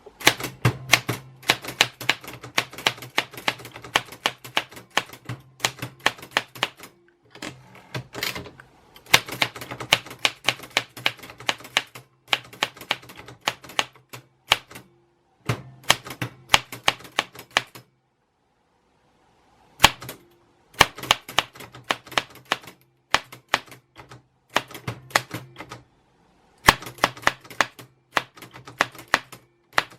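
Typewriter keys struck in quick runs of clacks, with short pauses between runs and a longer stop of about two seconds just past the middle.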